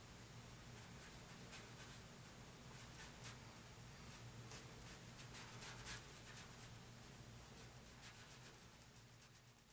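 Faint strokes of a paintbrush on canvas, scratching irregularly over a low steady hum, fading out near the end.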